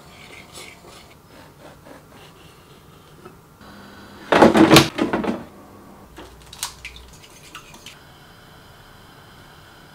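A wire whisk scraping softly through flour in a ceramic bowl, then a loud clatter of about a second as the Cosori air fryer's basket is slid into place, followed by a few light clicks of metal tongs against a glass bowl.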